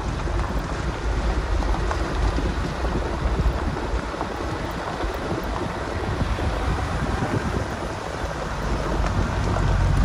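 Off-road 4x4 driving over rough ground: low engine and drivetrain rumble with frequent small knocks and rattles from the track, and wind noise on the microphone.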